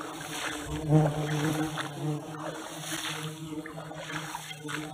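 Footsteps swishing through tall shoreline grass, under a steady low droning hum with several overtones that dips briefly about two seconds in.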